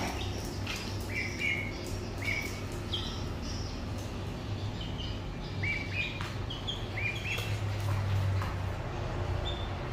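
Ducklings and chicks peeping: short, high peeps in small scattered clusters, over a steady low hum.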